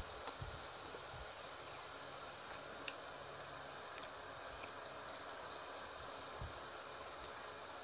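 Faint sounds of eating rice and fish curry by hand: fingers working the food on the plate, then soft chewing with a few small mouth clicks, over a steady background hiss.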